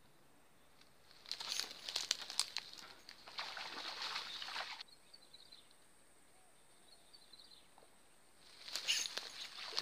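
Rustling and crackling of dry oil palm fronds and undergrowth being trodden on and brushed through, in two bursts: one starting about a second in and lasting over three seconds, another near the end.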